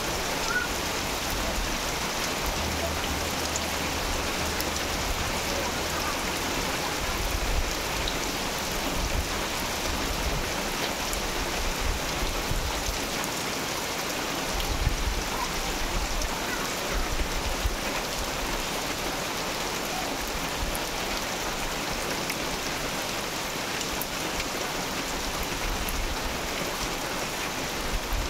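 Heavy tropical rain pouring steadily onto grass and puddled ground, an even dense hiss, with a low rumble twice, a few seconds in and again about halfway.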